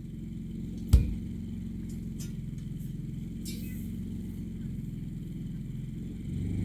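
One sledgehammer blow on a steel ground rod about a second in, then a steady engine drone that gets louder near the end.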